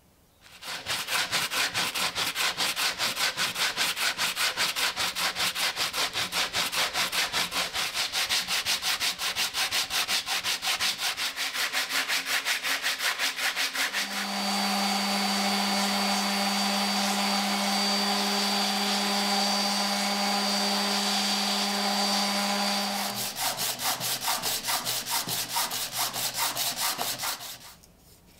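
Sandpaper rubbing over a wooden tobacco-cutter handle in fast, even back-and-forth strokes. In the middle, for about nine seconds, a small electric sander runs steadily with a constant hum. The hand strokes then resume and stop shortly before the end.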